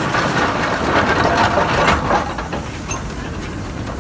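Steam locomotive rolling slowly past at close range, steam hissing over the clatter of wheels and coupling rods on the rails; the hiss eases off about two seconds in.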